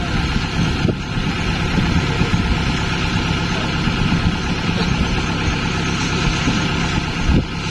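Combine harvester's diesel engine running steadily and loudly.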